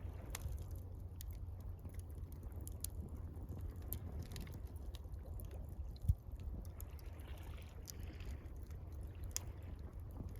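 Campfire crackling with scattered sharp pops, over gentle water and a steady low rumble. A single low thump about six seconds in.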